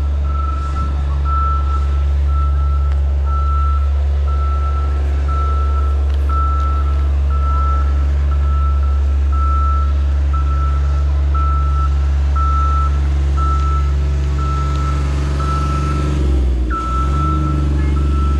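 A vehicle's reversing alarm beeping steadily, one short high beep about every three-quarters of a second, over a loud, steady low rumble.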